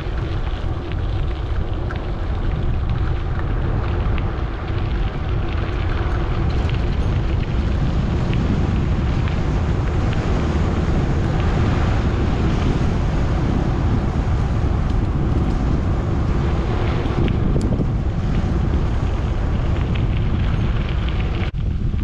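Strong wind buffeting the microphone: a steady, loud rumble with no break.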